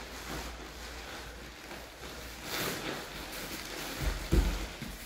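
Jiu-jitsu grapplers scuffling on foam mats: gi fabric rustling and bodies shifting, with a heavy thud a little over four seconds in.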